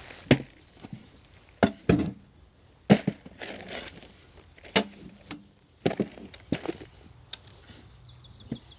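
Spade scooping potting soil out of a metal wheelbarrow and tipping it into a plastic balcony planter: irregular sharp scrapes and knocks about once a second, some followed by a short rustle of falling soil.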